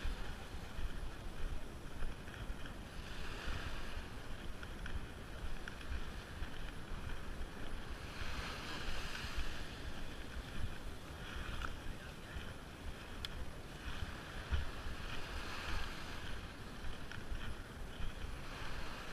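Wind buffeting the microphone in a steady low rumble, with small waves washing up the sand in soft swells every few seconds.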